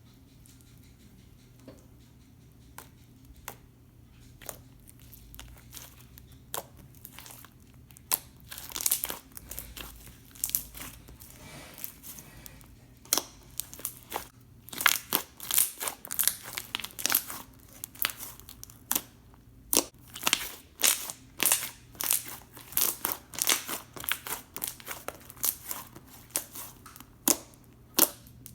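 Borax-activated glue slime being squished and poked by hand, giving irregular sharp crackles and pops that come thicker and louder from about halfway through.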